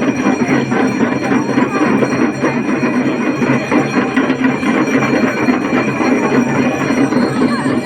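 Damaru drums beaten together in a fast, steady, rattling rhythm.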